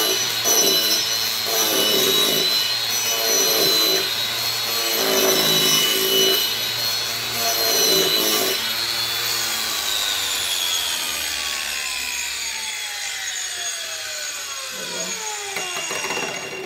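Makita 18-volt cordless angle grinder with an abrasive disc grinding an ash bowl blank: a steady high motor whine with a grinding surge about once a second as the disc is worked across the wood. About nine seconds in the grinding stops and the whine falls slowly as the disc spins down off the wood.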